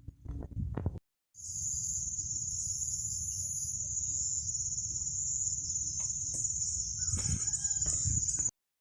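Insects buzzing in a steady, high, unbroken drone over a low rumble, with chickens clucking in the last couple of seconds. A few light knocks come in the first second.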